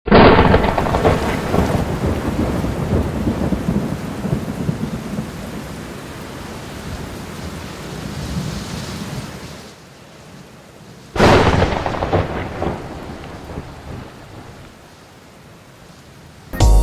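Two thunderclaps, one at the start and one about eleven seconds in. Each is sudden and loud, then rumbles and fades slowly over several seconds.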